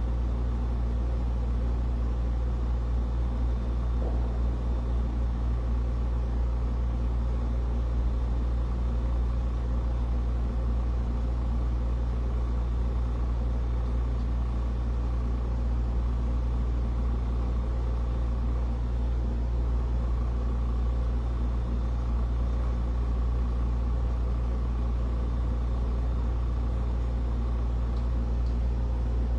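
Steady low machine hum that holds unchanged, with no knocks or other events.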